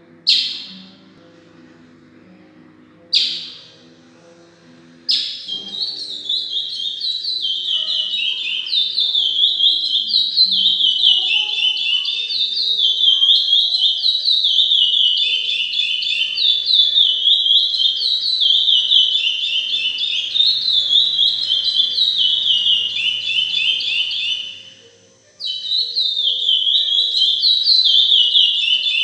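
A young chestnut-bellied seed finch (curió) practising its song. Two sharp call notes come in the first few seconds, then a continuous warbling song of quick, falling phrases, broken by a brief pause near the end.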